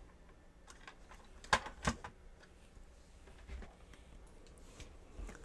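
Small parts being handled on a workbench: two sharp clicks a moment apart about a second and a half in, with a few faint taps otherwise.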